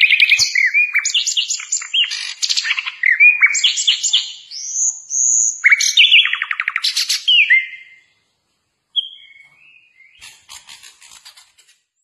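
Caged sikatan londo flycatcher singing a fast, varied song of rapid trills, slurred whistles and chattering notes. The song stops about eight seconds in, followed by a few faint short calls.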